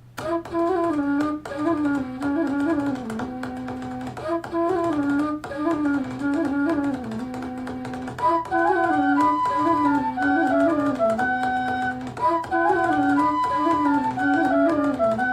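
Instrumental music with a repeating melodic phrase, played back through a Sony SRS-XB22 Bluetooth speaker with its Extra Bass mode on. The music starts right at the beginning.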